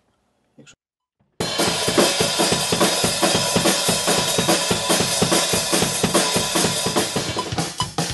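Rock drum kit played in a fast, steady beat under a constant wash of crash cymbal, starting suddenly after about a second and a half of silence. The part is being played to test a newly fitted crash cymbal.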